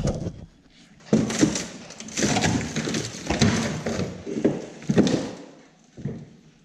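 A 1981 Yamaha Enticer snowmobile being tipped over onto its side on a concrete floor: a run of clunks, knocks and scrapes from the sled's body and skis, from about a second in until about five seconds in.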